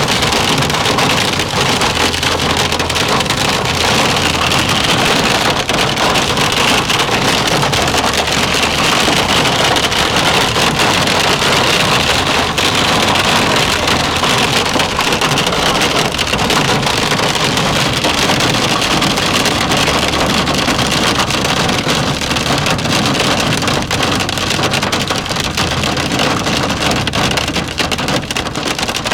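Hailstones drumming on a moving car's roof and windshield in a dense, steady patter, heard from inside the car.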